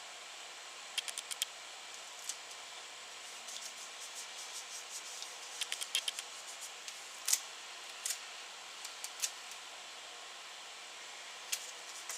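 Tape being handled and pressed down onto a paper pattern on wood: scattered small clicks and crinkles over a steady faint hiss.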